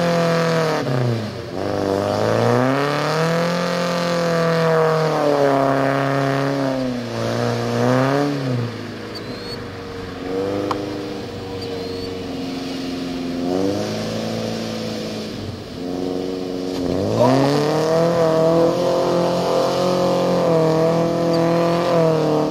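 1994 Toyota pickup's engine revving hard through a mud hole, rising and falling about four times, high near the start, in the middle, and for a long stretch near the end. Mud and water spray off the spinning tyres.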